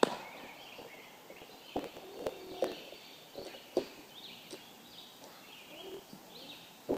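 A baseball smacking into a leather glove at the very start, then a few lighter scattered knocks, with birds chirping in the background.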